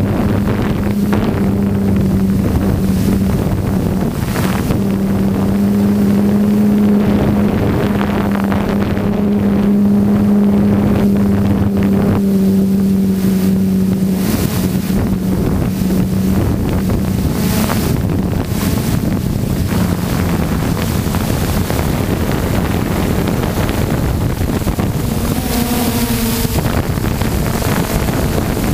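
Electric motors and propellers of an RC multirotor in flight, giving a steady hum under wind rushing over the onboard camera's microphone. The hum fades about halfway through and briefly rises in pitch near the end.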